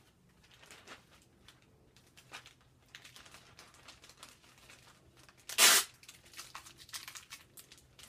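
Packing materials being handled: plastic and tape crinkling and rustling in short bursts, with one loud tearing sound, under half a second long, about five and a half seconds in.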